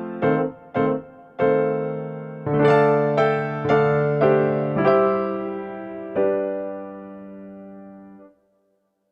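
Background music: a keyboard in a piano-like tone playing single notes and then held chords that ring and fade away. The music stops a little over eight seconds in.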